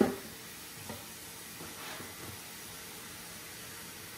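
Kitchen tap running steadily into a pot of potatoes and chicken broth, filling it until the potatoes are covered. A short knock sounds at the very start.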